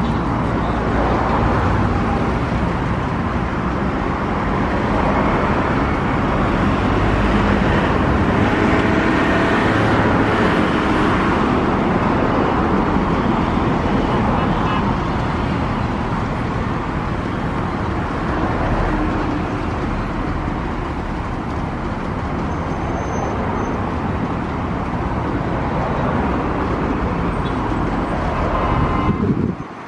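Jet engines of a Boeing 787 Dreamliner rolling out on the runway after touchdown: a steady roar that swells a few seconds in and eases off over the last third.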